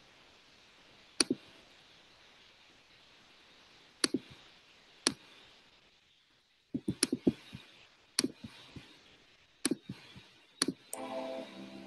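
Sharp clicks from operating a computer, single and paired at irregular intervals, with a quick run of five or six about seven seconds in. Near the end, music starts playing.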